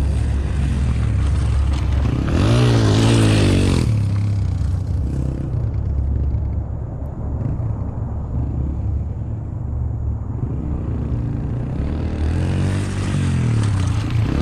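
A pit bike's small motorcycle engine running steadily, revving up and back down about two seconds in and again near the end.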